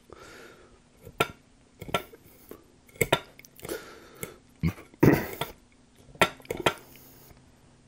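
Metal fork clinking and scraping against a ceramic dinner plate as food is gathered onto it: a series of sharp separate taps and short scrapes, the loudest and longest about five seconds in.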